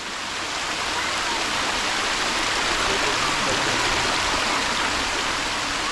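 Waterfall rushing: a steady, even noise of heavy falling water.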